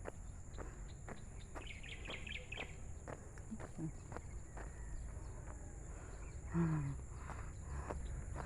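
Footsteps of a person walking at a steady pace, about two steps a second. A quick burst of high bird chirps comes about two seconds in, and a short, low, falling voice-like sound is the loudest thing near the seven-second mark.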